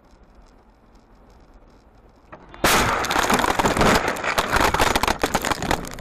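Quiet road noise inside a moving car. About two and a half seconds in, a sudden loud, continuous clattering and crunching breaks out, full of sharp impacts: the sound of a car crash picked up by the dashcam.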